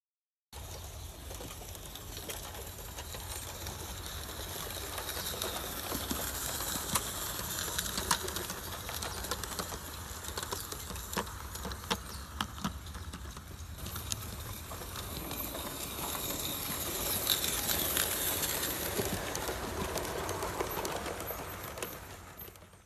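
Roundhouse Engineering 'D'-class Garratt, a 16mm-scale live-steam locomotive, running with its factory-fitted exhaust enhancer: mostly a steady hiss with little chuff to it, broken by scattered sharp clicks. The weak exhaust beat shows that the factory enhancer does little for the sound.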